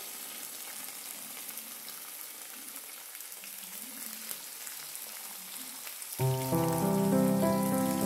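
Thin slices of raw meat sizzling and crackling in hot oil in a frying pan as more pieces are laid in. About six seconds in, background music starts and becomes the loudest sound.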